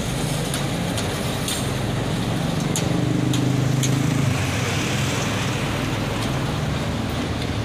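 GR12W diesel-electric locomotive running light while shunting, its diesel engine droning steadily as it rolls past, loudest a few seconds in. A few sharp clicks come in the first three seconds.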